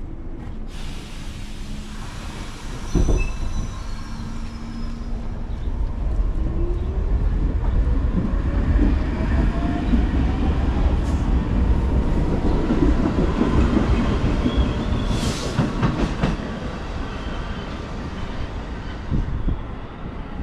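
Subway train pulling out of the station: a knock about three seconds in, then the traction motors' whine climbs steadily in pitch over a building rumble of wheels on rails. Short high squeals from the wheels come in the middle, and the rumble fades near the end.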